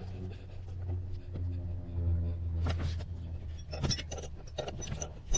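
Seat-belt anchor being bolted back to the car's frame: metal clicks and clinks of the tool and hardware, coming thick and fast from a little before the four-second mark, over a low steady hum.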